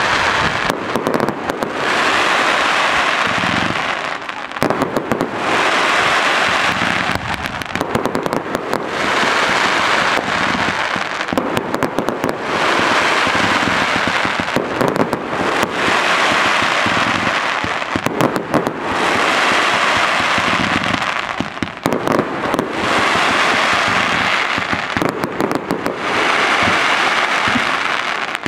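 A professional fireworks display going off in a rapid, continuous run of bangs and crackle, with stretches of hissing lasting a couple of seconds that recur every few seconds.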